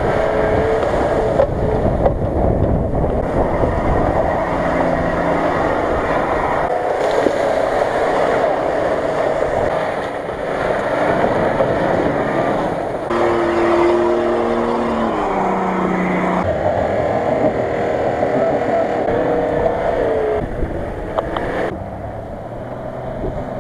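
Steady motor noise with pitched lines that rise and fall, changing abruptly several times as the shots change.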